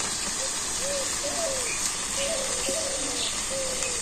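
Vegetables sizzling in a wok over a stove fire: a steady hiss, with a single click at the start.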